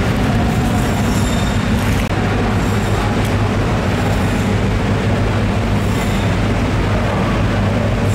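Steady, loud mechanical drone with a constant low hum. A few brief, high clinks sound over it now and then.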